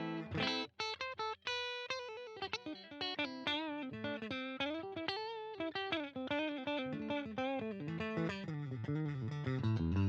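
Electric guitar, a JCraft LSX-1 fitted with humbucker pickups, playing unaccompanied. A few short chord stabs open the passage, then a single-note melodic line with bends and vibrato follows.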